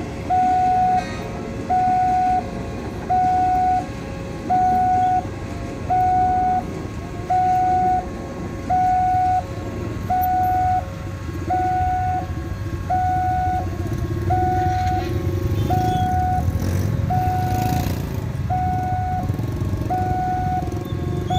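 Railroad level-crossing warning alarm sounding a repeating electronic two-tone chime, a higher note then a lower one, about once a second. Under it runs the rumble of a KRL electric commuter train passing over the crossing, which grows louder over several seconds in the second half.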